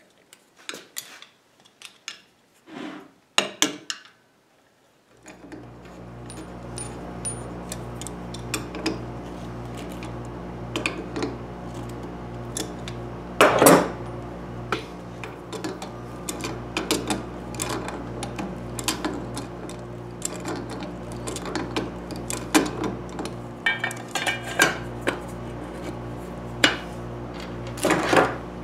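Screwdriver and small metal parts clicking and clinking as a toggle-switch box is fastened onto an electric motor, with a sharper knock about halfway through. About five seconds in, a steady low hum starts underneath and carries on.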